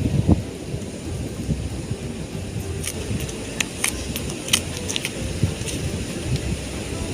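Low rumbling wind noise buffeting the microphone, with a handful of sharp clicks between about three and four and a half seconds in.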